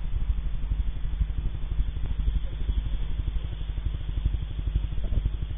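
An engine idling, heard as a fast, even low pulsing.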